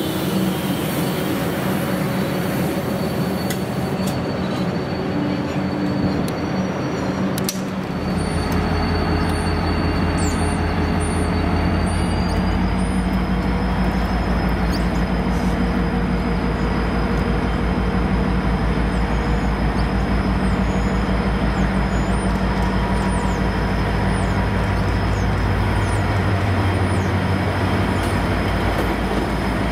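Passenger carriages rolling slowly past on the rails. Then V/Line A class diesel-electric locomotive A66, its EMD 645 two-stroke V16 diesel engine rumbling steadily, draws slowly past, with a steady high whine above it.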